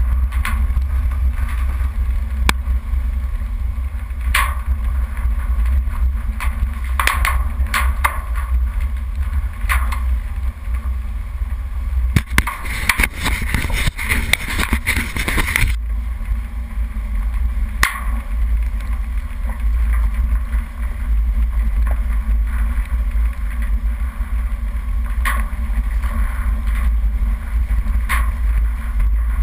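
Off-road vehicle driving over a rough, rocky dirt track, heard through a hood-mounted camera: a steady low rumble with scattered knocks and rattles from bumps. About twelve seconds in, a loud scraping rub lasting some three seconds as something brushes over the camera.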